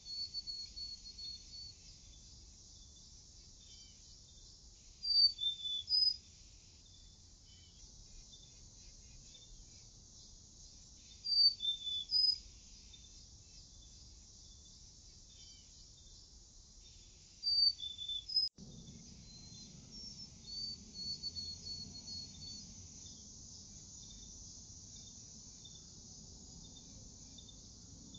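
A songbird singing a short, high phrase about every six seconds, three loud phrases with softer chirping between them, over a faint steady insect chorus. A single click about two-thirds of the way through.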